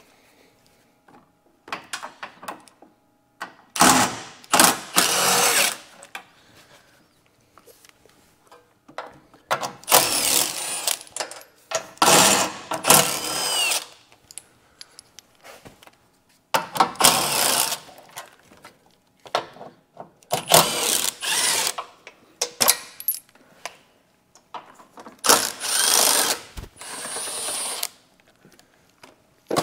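A cordless power tool runs in about six bursts of one to three seconds each as it spins out the 13 mm bolts holding a minivan's front bumper.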